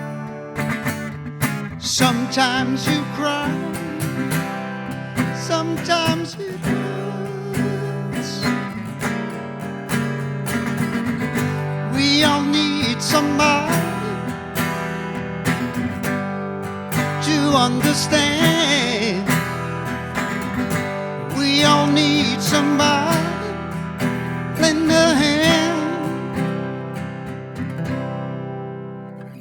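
Live acoustic guitar music: an instrumental passage with a wavering melodic line over strummed chords, fading toward the end.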